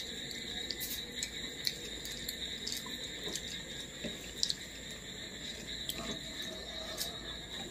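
Close-miked eating sounds: chewing, and fingers squishing rice with dal on a plate, giving many short wet clicks over a steady high hiss.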